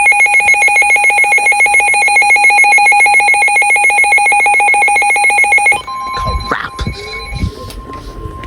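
A weather alert radio's built-in alarm sounding a loud, rapid electronic trill for about six seconds, then cutting off abruptly as the steady single-pitch NOAA Weather Radio warning alarm tone starts through its speaker, signalling an incoming warning. A few light knocks come just after the change.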